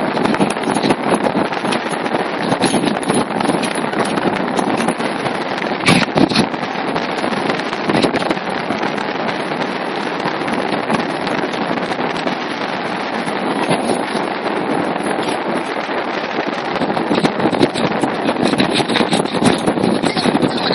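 Strong wind buffeting the microphone aboard a small sailing dinghy: a loud, steady rush with crackling gusts, and a sharp knock about six seconds in.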